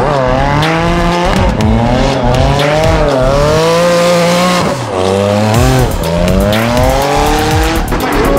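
Drift cars' engines revving hard while sliding sideways, the pitch rising and falling as the throttle is worked, with tyre squeal.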